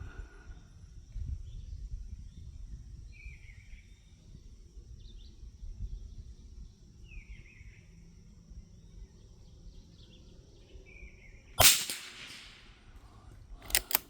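A single shot from a Brno Model 1 .22 LR bolt-action rifle about three-quarters of the way through, a sharp crack with a trailing echo of about a second. Near the end, two quick sharp clicks as the bolt is worked. Faint bird chirps every few seconds and light wind on the microphone underneath.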